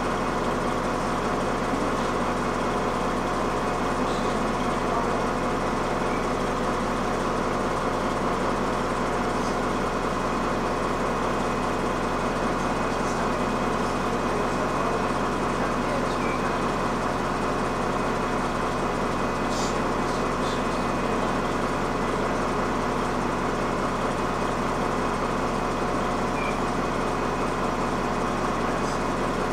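Steady engine hum and cabin noise inside a city bus, with a few faint clicks.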